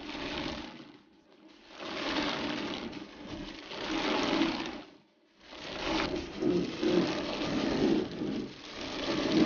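The fodder pair of millstones in a wind-driven corn mill grinding maize, with a steady rattling rumble from the stones and the wooden gearing. The sound cuts out to silence twice, briefly at about a second in and again at about five seconds in.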